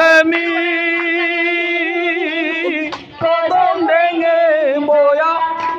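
A girl singing solo into a microphone, holding long notes of a Radha-Krishna devotional song with a wavering pitch. She breaks briefly for breath about three seconds in, then carries on.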